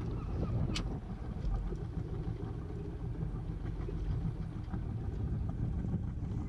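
Sailboat's engine running slowly and steadily as the boat is motored in to a pontoon, with one sharp click about three quarters of a second in.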